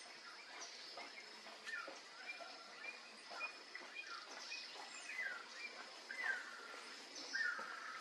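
Background songbirds chirping: many short, slurred calls from small birds, louder and more frequent toward the end, over a thin steady high tone.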